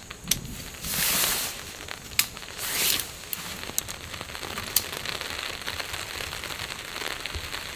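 Tent fabric swishing and rustling as a Eureka Timberline 2 tent is pulled taut over its poles, with a few sharp clicks. After about five seconds only a faint steady hiss remains.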